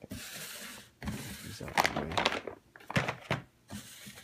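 Clear plastic bag crinkling in several bursts as the slide sandals inside it are handled and lifted from a cardboard box, with a soft thump as the bag is set down.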